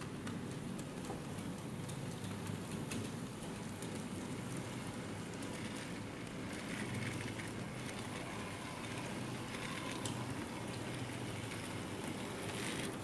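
Model railway goods train running along the track behind a model steam locomotive: a steady low hum with scattered light clicks and patter.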